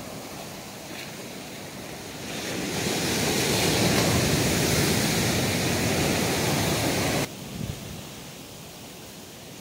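Ocean surf: a wave rushing in, building about two seconds in to a loud wash, then cutting off abruptly about seven seconds in.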